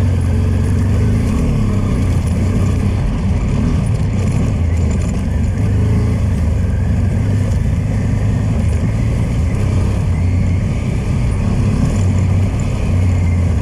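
Honda Transalp motorcycle engine running steadily while it is ridden along an off-road track.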